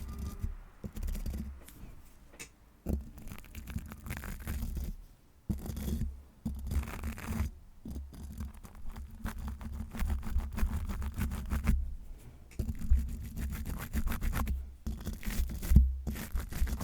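Scratching and rubbing directly on a sensitive ASMR microphone: dense scratchy crackling over a low rumble, in bouts of a few seconds with brief pauses between them.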